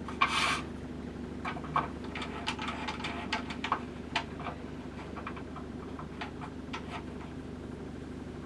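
Handling noise on a rod-wrapping lathe: a brief rustle just after the start, then a run of small clicks and light taps as a rod blank section is set in the rod rests and the wing nuts on the pulleys are adjusted, over a steady low hum.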